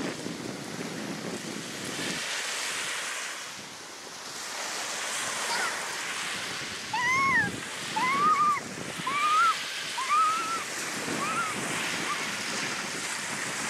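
Small waves breaking and washing up on a sand beach, with wind on the microphone. From about halfway on, a series of short, high calls, each rising then falling in pitch, comes about once a second and stands out above the surf.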